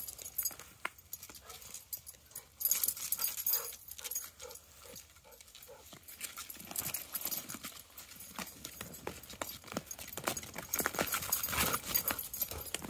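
Two dogs play-wrestling in snow: paws scuffling and crunching in the snow, with scattered short clicks and knocks.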